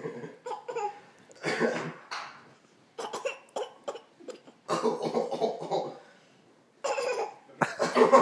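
Playful back-and-forth coughing: a man's deliberate coughs and a 7-month-old baby's coughs imitating them, in several short bursts with pauses between, along with a little laughter.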